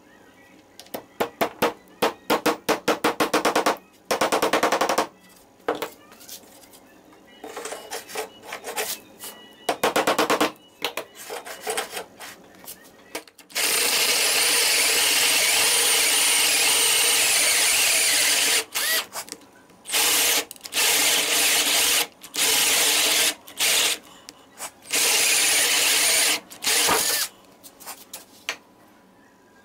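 Cordless drill driving a hole saw through a board. It starts with rapid stuttering stops and starts, runs steadily for about five seconds in the middle of the cut, then goes in short on-off bursts until the hole is through.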